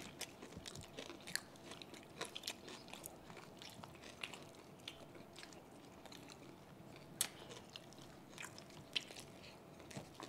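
Close-up chewing and biting of crispy deep-fried pork belly crackling (lechon kawali), with irregular sharp crunches and mouth clicks.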